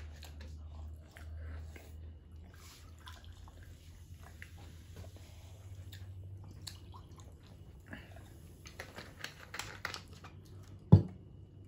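Cola pours from a plastic Coca-Cola bottle into a glass, with faint fizzing, small handling clicks and eating noises. About eleven seconds in comes one sharp, loud thump as the bottle is set down on the table.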